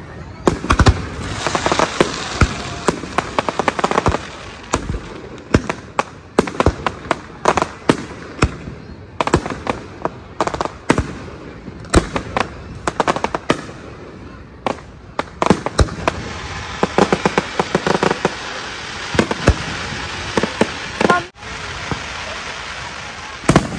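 Aerial fireworks bursting in quick succession: many sharp bangs and cracks over continuous crackling.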